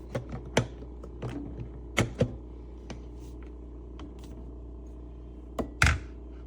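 Espresso machine and its parts being handled: a string of sharp clicks and knocks, with one louder clunk near the end, over a steady low hum.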